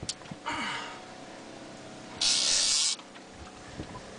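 Fishing reel's drag buzzing as a hooked shark pulls line off, in two short bursts: a weaker one about half a second in and a louder one about two seconds in.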